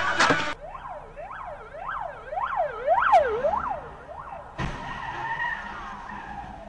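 Ambulance siren wailing in quick rising-and-falling cycles, about two a second. About four and a half seconds in comes a sudden thump with a burst of noise, and after it a tone slides slowly down in pitch.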